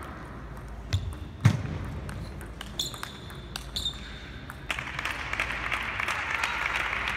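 Table tennis rally in a large hall: sharp clicks of the celluloid ball off paddles and table, the loudest with a low thud about a second and a half in, and brief high shoe squeaks on the court floor. The point ends just under five seconds in and applause starts.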